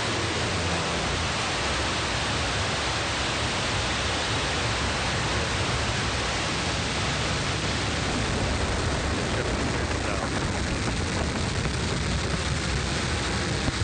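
Blue Origin New Shepard rocket's single BE-3 hydrogen-fuelled engine firing through ignition and liftoff: a loud, steady rush of noise with no let-up.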